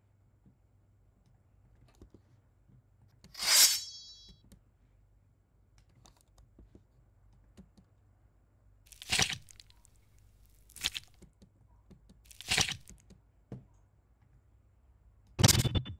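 Sword and knife sound effects: a metallic blade ring (a sword being drawn) a few seconds in, then four short blade swishes and slicing hits spaced one to two seconds apart.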